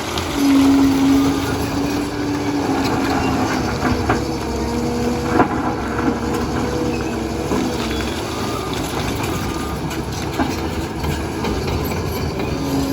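Liebherr PR 746 crawler dozer working: diesel engine running with the steel tracks clattering. A steady whining tone comes and goes through it.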